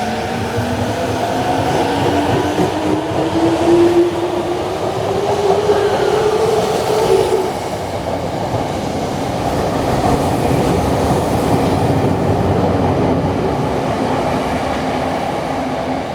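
Tokyo Metro 05-series electric train pulling away: the traction motors' whine rises steadily in pitch and cuts off about seven seconds in. Wheel rumble and rail clatter carry on as the cars run past.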